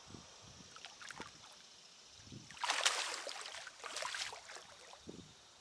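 Hooked catfish splashing in the water at the side of the boat as it is landed. There are a few light knocks first, then a loud burst of splashing about two and a half seconds in that lasts about two seconds.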